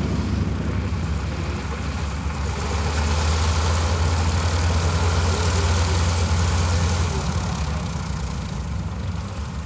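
North American SNJ Texan's nine-cylinder Pratt & Whitney R-1340 Wasp radial engine idling as the trainer taxis. It is a steady low rumble that swells a little around the middle and eases off near the end.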